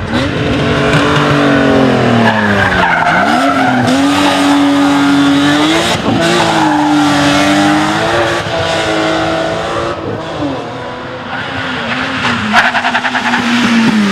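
Rally car engine revving hard, its pitch climbing and falling back several times as it shifts and lifts through the stage, with a short burst of rapid crackling pops near the end.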